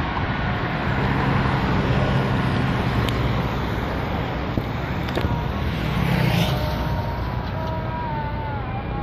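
Road traffic on a multi-lane road: a steady low engine drone and tyre noise, with one vehicle passing close about six seconds in.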